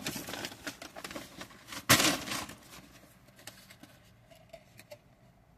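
Fast-food packaging around a Chicken Big Mac being handled and opened: crackling and rustling, with one sharp louder snap about two seconds in, then fainter small ticks.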